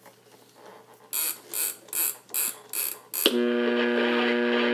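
Alarm buzzer of a Sony 8RC-25 Digimatic flip clock sounding: about five short hissy pulses, then a steady buzz from about three seconds in.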